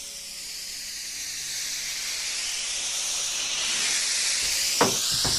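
Bug-repellent grenade spraying with a steady, high-pitched hiss that slowly grows louder, with a couple of soft knocks near the end.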